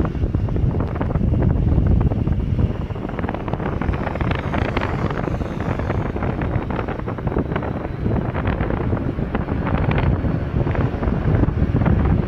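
Wind buffeting the microphone in uneven gusts, a heavy low rumble, with road traffic beneath it.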